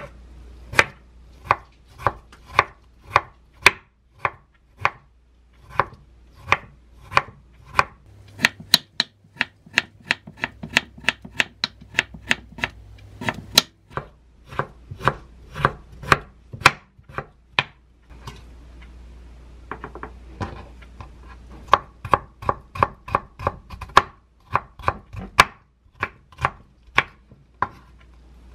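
Kitchen knife slicing a bar of yellow pickled radish (danmuji) on a wooden cutting board: a steady run of sharp knife taps on the board, about two to three a second, with a short pause about two-thirds of the way through.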